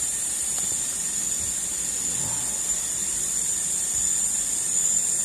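Steady, high-pitched drone of insects over the even rush of running stream water.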